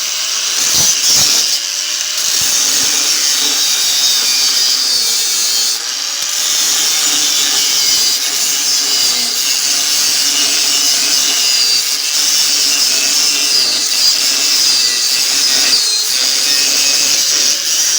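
Angle grinder with a worn-down cut-off wheel cutting steel on steel through a refrigerator compressor shell, a steady high grinding. The wheel is nearly used up, so the tool rattles against the steel with the vibration.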